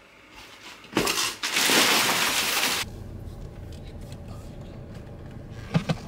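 Loud crinkling and crushing of plastic packaging wrap for about two seconds, stopping suddenly. Then the low steady rumble of a car heard from inside the cabin, with two short clicks near the end.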